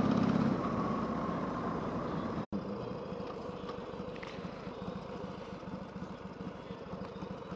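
Harley-Davidson Sportster's V-twin engine running as the motorcycle is ridden, its level easing off. The sound drops out for an instant about two and a half seconds in, then the engine runs on quieter with an even low pulse.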